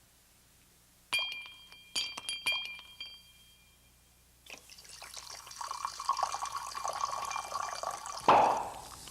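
A glass clinked four times, each clink ringing briefly. Then liquid is poured into a glass for a few seconds, ending with a loud plop near the end.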